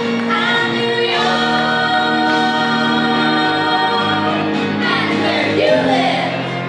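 Live musical-theatre singing: a trio of singers holds long close-harmony notes over the band, changing chord a couple of times, then breaks into wavering, swooping vocal runs near the end.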